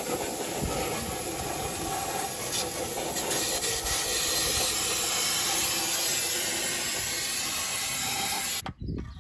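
Aerosol brake cleaner spraying in one long continuous hiss, flushing water-contaminated gear oil out of an open truck front differential. The spray cuts off suddenly near the end.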